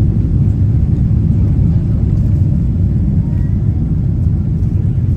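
Steady low rumble inside the passenger cabin of a Boeing 777 rolling on the ground after landing.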